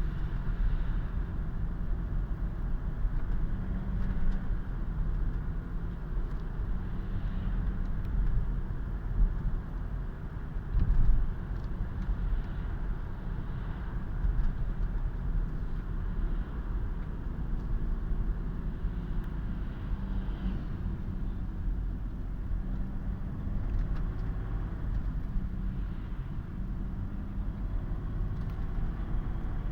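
BMW M57 (256D2) straight-six turbodiesel running while the car is driven, its note shifting with engine speed, with one short louder knock about eleven seconds in. The owner hears an odd sound from it under acceleration, loudest in second gear at around 2000 rpm.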